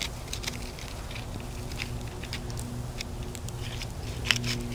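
Knife cutting raw squirrel meat away from the bone on a stone: soft, irregular clicks and scrapes, with a few sharper clicks a little past four seconds in.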